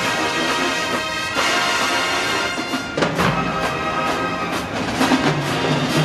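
HBCU marching band playing: the brass section holds loud sustained chords over drum hits. About three seconds in, a strong hit brings in heavier low brass.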